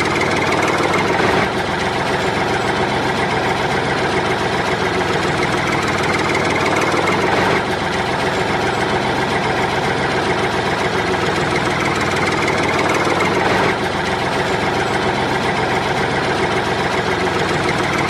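Tractor engine sound effect running steadily at idle with a knocking chug. The loop restarts about every six seconds.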